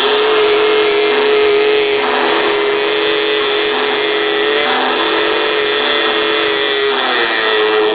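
Music: a sustained drone of several steady tones held together as one chord, its main pitch sliding down and back up about seven seconds in.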